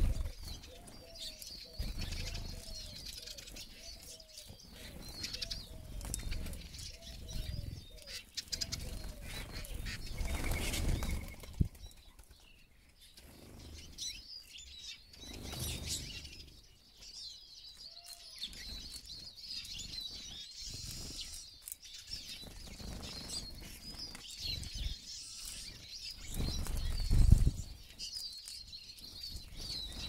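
A flock of Eurasian siskins at seed feeders: wings flutter again and again as birds land, take off and squabble, over constant high twittering chirps. The louder flurries come about ten seconds in and again near the end.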